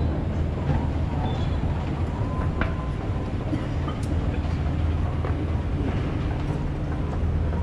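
Escalator running: a steady low mechanical hum, with a few light clicks scattered through it.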